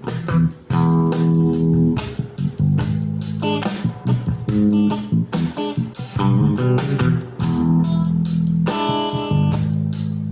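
Guitar music with bass notes and plucked strings played back through a homemade class A amplifier built around a single IRF3205 MOSFET, as a listening test of its sound.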